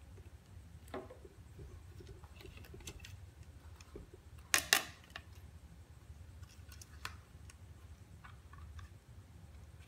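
A few light clicks and taps from handling a gold chain and the gold tester's metal alligator clip on a glass tabletop, with one sharp double click about halfway through.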